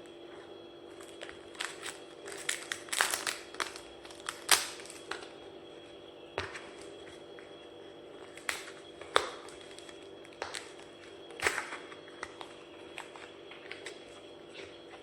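A cigarette pack being opened by hand: scattered crinkles, rustles and small clicks of its wrapper and cardboard over a faint steady hum.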